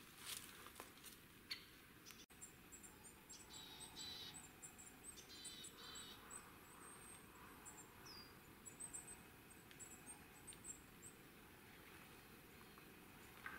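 Faint high, thin chirps and twitters of small songbirds in quick series, with a short falling note midway. A few faint clicks come near the start.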